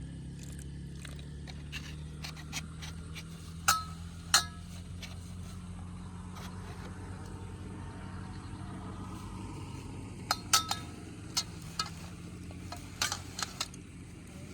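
Scattered sharp clinks and taps, a few with a short ring, over a steady low hum.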